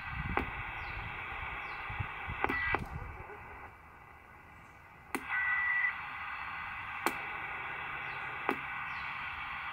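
Static hiss from a President Grant CB radio's speaker tuned to single sideband between stations, broken by several sharp clicks as the mode switch and knobs are turned. The hiss drops lower for about a second and a half midway, and a brief steady tone sounds just after it returns.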